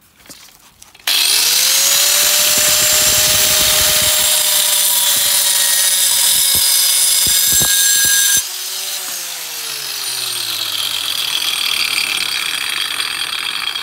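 Angle grinder with a diamond disc chamfering the cut edge of a riven concrete slab: the motor starts about a second in and spins up to speed, then grinds loudly against the concrete. About eight seconds in the grinding drops off and the motor winds down.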